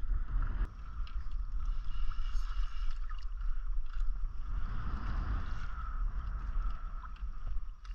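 Wind rumbling on the microphone and water lapping against a kayak hull, with a few light clicks.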